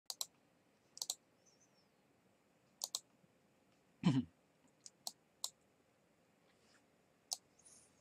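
Small sharp clicks, many in quick pairs, scattered through the quiet, with one duller, louder thump about four seconds in.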